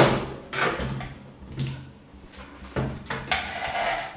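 Knocks and scrapes from an amplifier board on its metal mounting plate being picked up and moved about on a workbench. There is a sharp knock at the start, then several more bumps and scuffs.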